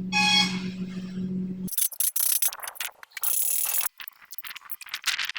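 A steady low machine hum that cuts off abruptly, followed by irregular bursts of harsh scraping or abrading on rusty sheet metal.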